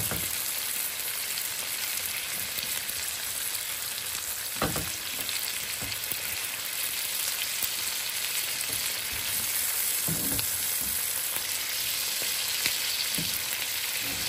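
Steaks frying in hot melted butter with garlic and thyme, sizzling steadily as the butter is spooned over them. There are a few soft knocks from the basting spoon against the pan.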